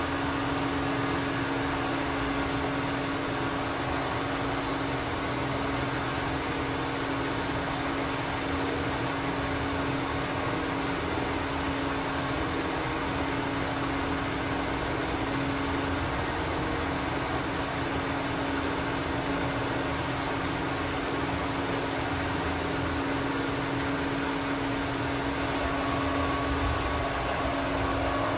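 Bridgeport vertical milling machine, its motor run from a variable frequency drive, running steadily with a steady hum while the end mill is fed around the outline of a spacer block.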